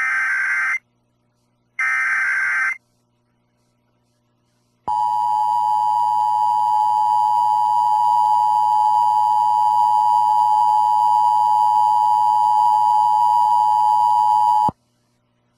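Emergency Alert System test tones: two short, buzzy SAME data bursts of about a second each, then, after a two-second gap, the EAS two-tone attention signal (853 and 960 Hz together) held steady for about ten seconds and cutting off sharply. This is the alert tone of a coordinated monthly EAS test.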